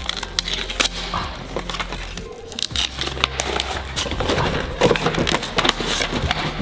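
Packaging being handled and pulled off a new Onewheel +XR board: rustling and crackling with a string of sharp clicks and knocks.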